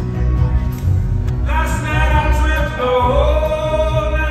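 Live acoustic folk-rock band playing, with banjo, acoustic guitar, upright bass, cello and drums. About a second and a half in, singing comes in on long held notes over the band.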